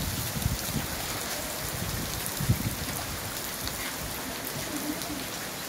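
Steady rain falling onto wet ground, an even hiss, with a few dull low thumps, the sharpest about two and a half seconds in.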